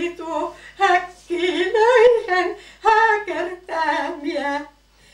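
A woman singing a Karelian runo song solo and unaccompanied, in short melodic phrases with brief breaks between them.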